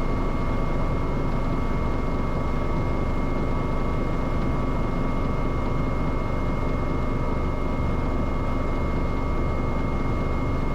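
Cockpit noise of an AW189 twin-turbine helicopter in flight: a steady dense drone of engines and rotor with a constant high-pitched whine over it.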